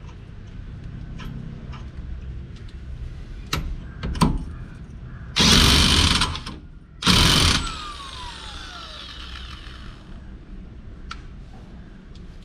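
Corded Ingco electric impact wrench hammering a car's axle hub nut tight in two bursts, the first about a second long and the second shorter; after it stops the motor winds down with a falling whine. A few light metal clinks come before the first burst.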